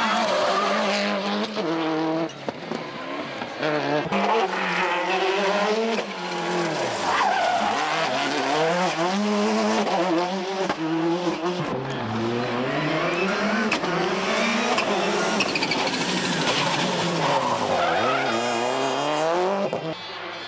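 Subaru Impreza WRC rally cars' turbocharged flat-four engines driven hard on a tarmac stage, revving up and down through the gears as several cars pass in turn.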